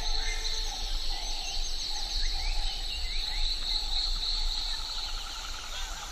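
Rainforest ambience: a steady, high insect drone with scattered bird chirps and trilling calls over it.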